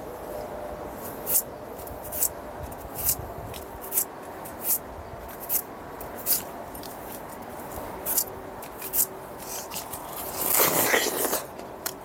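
A knife peeling and cutting a fresh Korean pear: crisp short snicks about once a second, then a louder, longer crunch near the end.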